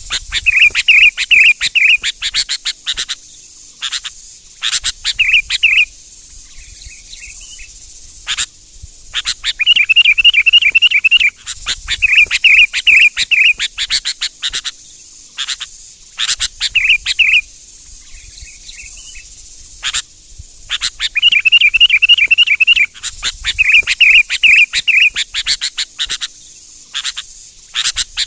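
Sooty-headed bulbul (kutilang) singing: repeated bursts of rapid trilled phrases, each a second or two long, with sharp short calls between them. A steady high hiss runs underneath.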